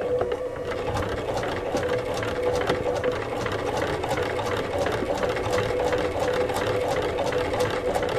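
Singer 128 hand-crank sewing machine running, its needle and vibrating-shuttle mechanism clattering in a fast, even rhythm that sets in about half a second in.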